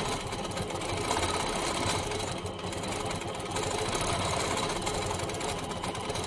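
Longarm quilting machine stitching steadily, a rapid even needle rhythm as it is guided through small free-motion circles.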